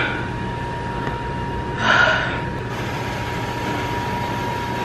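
A short breathy sigh or exhale from a person about two seconds in, over a steady low hum and a thin high whine.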